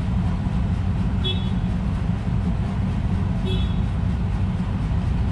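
A steady low rumble of background traffic or wind on the microphone, with two short high bird chirps, about a second in and again about three and a half seconds in.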